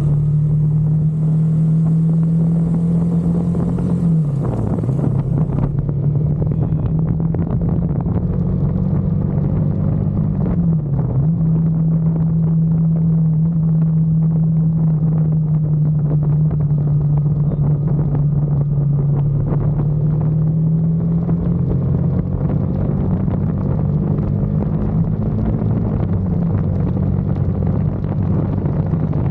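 KTM RC motorcycle's single-cylinder engine running at a steady pitch. The pitch dips briefly and recovers about four and eleven seconds in, then rises a little later on.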